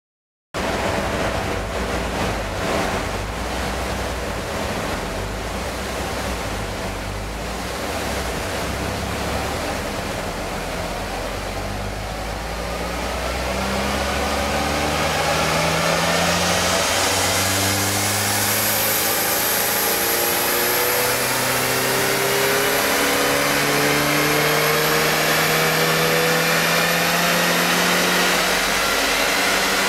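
Turbocharged Mitsubishi Lancer Evolution four-cylinder engine running under load on a rolling road, its revs climbing in steps through the second half and growing louder, over a steady rush of noise.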